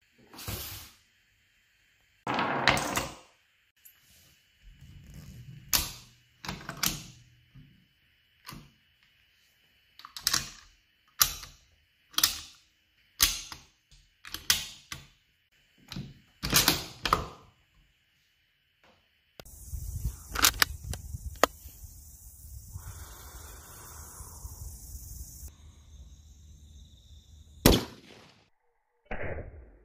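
Ruger M77 bolt-action rifle in .308 being handled up close: a string of sharp metallic clicks and clacks as the bolt and action are worked. Then wind buffets the microphone, and near the end comes a single loud sharp crack, the rifle firing.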